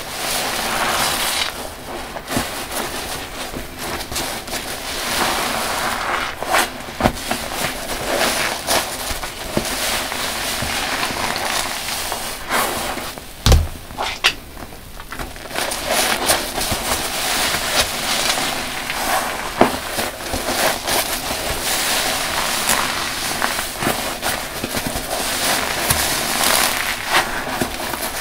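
Large soft sponges full of dish-soap foam squeezed by hand: wet squelching and a dense crackle of popping suds, with a dull thump about halfway through.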